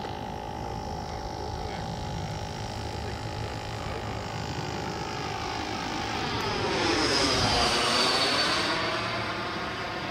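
A 120 mm Schübeler electric ducted fan in an HSD L-39 model jet whines and rushes in flight. The sound swells from about six seconds in, with a high whine and a rush that sweeps down and back up in pitch as the jet passes. It peaks around eight seconds and then fades.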